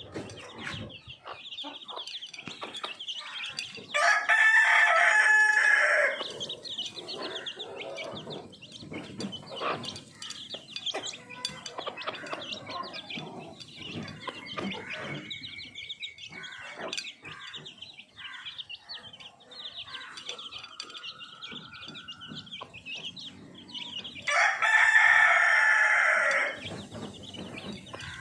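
Aseel rooster crowing twice, each crow about two seconds long, once about four seconds in and again near the end, over steady clucking from other chickens.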